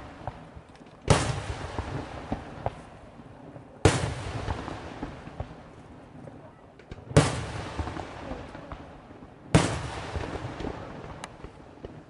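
Aerial firework shells bursting: four loud bangs two to three seconds apart, each followed by a long fading echo, with a few faint pops in between.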